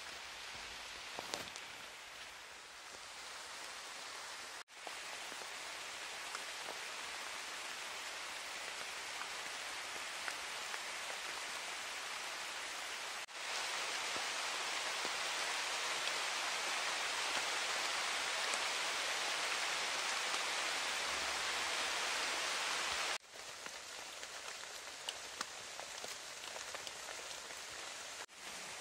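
Steady rain falling on leaves and grass, with scattered drops, in several stretches joined by abrupt cuts. The middle stretch is the loudest.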